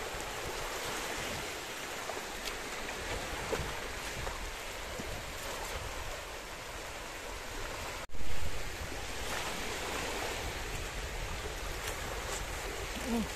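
Small waves washing and lapping steadily onto a sandy beach at the water's edge. About eight seconds in, a brief loud burst stands out over the surf.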